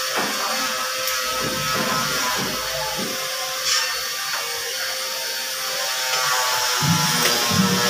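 Background music with sustained notes and a steady low beat. The beat drops out for a few seconds in the middle and comes back near the end.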